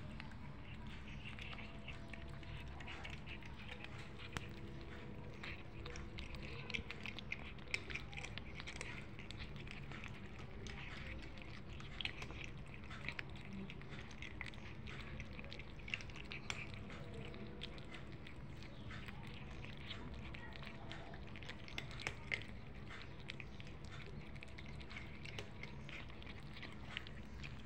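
Two cats chewing and smacking on wet food at close range: a run of small irregular wet clicks, over a steady low background hum.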